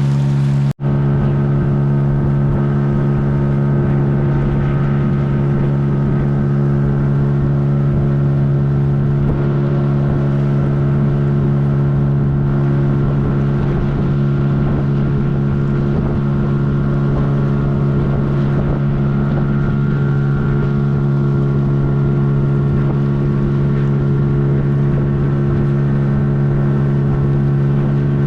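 Boat's outboard motor running at a steady, unchanging pitch while under way.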